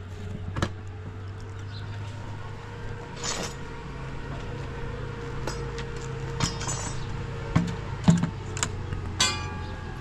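Scattered light clinks and knocks of kitchenware over a steady low hum, the sharpest knocks coming in the last few seconds.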